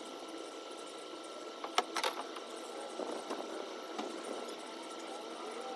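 A steady mechanical hum with a thin high whine running under it, and two sharp knocks close together about two seconds in, with a few fainter ticks later.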